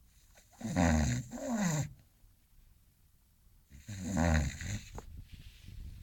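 English Bulldog snoring in its sleep: two loud snoring breaths about three seconds apart, the first a double one, each with a pitch that falls.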